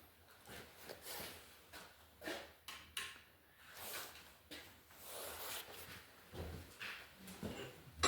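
Faint, irregular knocks and scraping sounds of objects being handled, a few each second, with no steady machine running.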